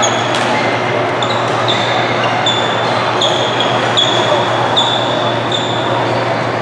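Badminton hall during a match: racket hits on the shuttlecock and a run of short, high squeaks about one a second, typical of court shoes on the mat, over a steady hum and murmur of the hall.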